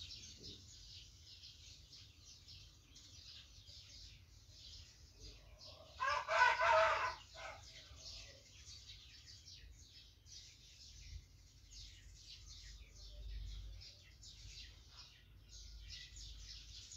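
Red beans rattling and scraping quietly as a metal spatula stirs them around a steel wok. A rooster crows once, loudest, about six seconds in.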